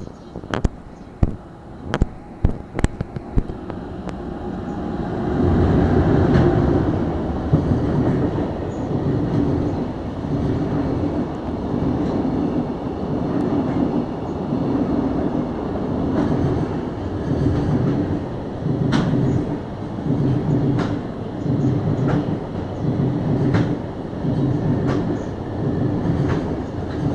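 A few sharp clicks, then a train comes by on the tracks close at hand, swelling in about five seconds in. It keeps on passing with a steady repeating clickety-clack as its wheels run over the rail joints.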